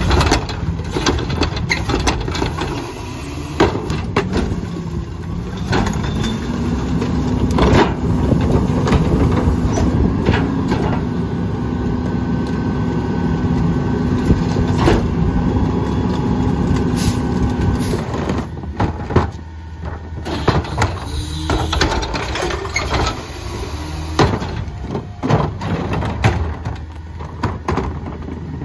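Mack LR rear-loader garbage truck with a McNeilus body: the cart tipper dumps a recycling cart with knocks and clatter, then the engine speeds up to drive the hydraulics while the packer blade sweeps and compacts the load, holding a steady pitch until it drops back to idle about 18 seconds in. More knocks and clatter follow near the end as carts are handled.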